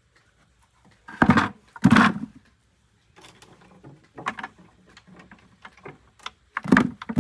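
Two loud thumps a little over a second in, half a second apart, then a run of lighter clicks and taps.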